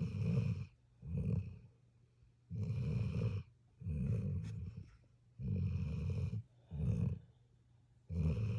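A sleeping puppy snoring in a regular rhythm: about seven snores, some short and some drawn out, with quiet gaps between breaths.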